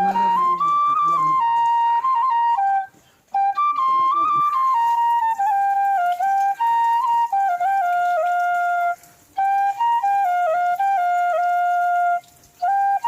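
Background music: a solo flute playing a slow stepwise melody in phrases, with short pauses between them.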